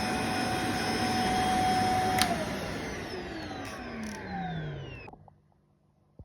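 Vacuum cleaner motor running with a steady whine, switched off with a click about two seconds in. The motor winds down in a falling whine and goes quiet about five seconds in.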